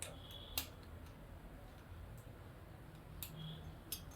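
Small parts of an automatic syringe being handled as its rubber seal is pushed into place: a few faint, sharp clicks and two brief squeaks.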